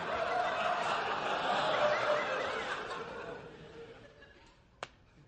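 Studio audience laughing, dying away over about four seconds.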